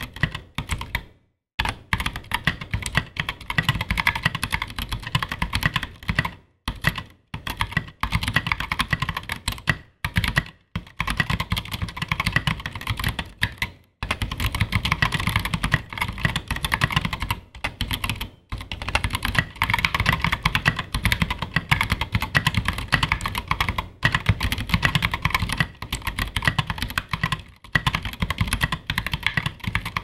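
Continuous typing on a custom 60% mechanical keyboard with Zealios 67g tactile switches, tall SA keycaps and an aluminium case and plate: a dense run of keystrokes, broken by short pauses every few seconds.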